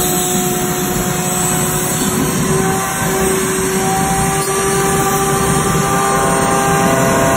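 Small handheld corded power tool running at steady speed while cutting into pink foam. Its motor gives a steady whine over a constant rushing noise.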